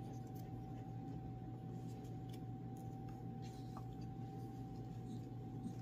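Faint scattered clicks and taps from the plastic and metal parts of a small refractor telescope being handled as an eyepiece is fitted into its focuser. They sit over a steady room hum with a thin constant tone.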